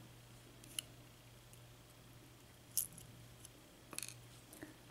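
Faint, scattered clicks of small metal lock pins and tools being handled while top pins, spool pins among them, are picked out of a disassembled padlock, over a low steady hum.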